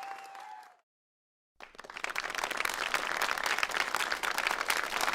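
Crowd applause dying away, then under a second of dead silence, then another round of applause starting suddenly and swelling into dense clapping.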